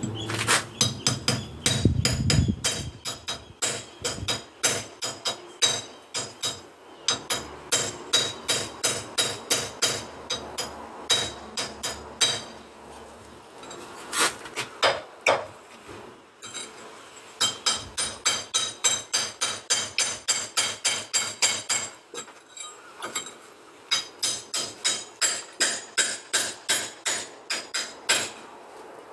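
Hammer blows on a concrete block wall, struck in fast runs of about three a second with short pauses between runs, each blow sharp and ringing.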